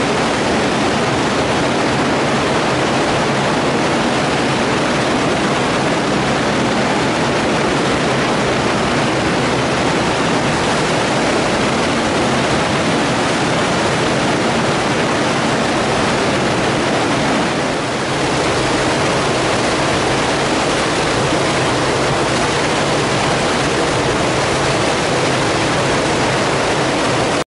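Storm runoff rushing and splashing through a concrete storm-sewer diversion chamber and its pipes as a loud, steady rush of water. It dips briefly about eighteen seconds in.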